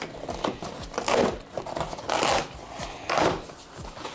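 Cardboard box being torn open by hand, a rasping rip repeated about once a second.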